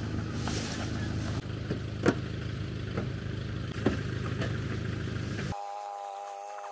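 An engine idling steadily with a low hum, with a few sharp knocks over it. About five and a half seconds in it cuts off abruptly and gives way to a steady buzzing drone of several held pitches.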